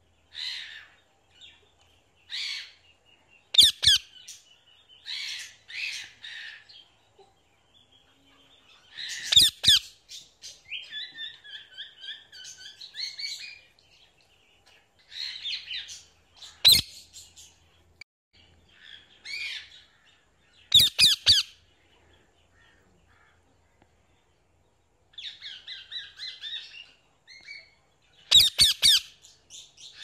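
Alexandrine parakeet calling: a few loud, harsh screeches several seconds apart, with softer warbling chatter between them.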